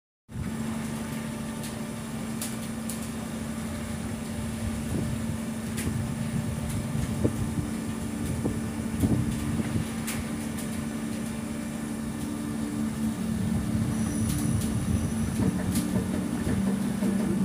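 Fishing vessel's machinery droning steadily at a constant low pitch, with a few sharp knocks now and then; a second, lower tone joins it a few seconds before the end.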